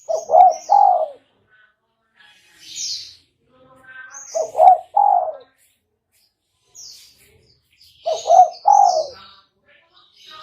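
Spotted dove (tekukur) cooing: three phrases of a few quick coos each, about four seconds apart. Higher, fainter chirps from small birds come between the phrases.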